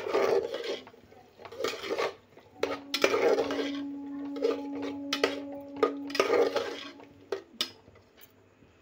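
Metal spatula scraping and stirring masala, mutton and lentils frying in a pressure cooker pot, in repeated strokes, with a couple of sharp clinks near the end. A steady low tone sounds through the middle few seconds.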